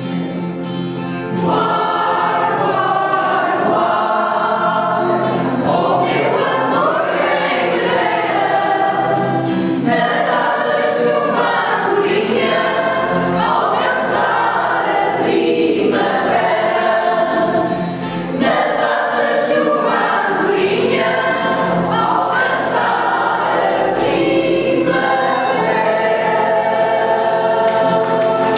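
Mixed choir of men's and women's voices singing a Portuguese popular song to acoustic guitar accompaniment. The voices come in about a second and a half in, after a short quieter passage.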